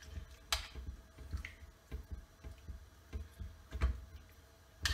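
A spoon stirring chicken pieces in sauce in a stainless steel sauté pan, with a few light, scattered clicks of the spoon against the pan.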